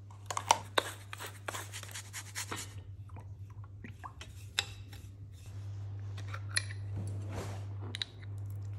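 A metal spoon stirring dry panko breadcrumbs and chopped parsley in a ceramic bowl: a quick run of scratchy scrapes and clinks for the first few seconds, then scattered clinks of the spoon against the bowl and a small glass jar. A steady low electrical hum runs underneath.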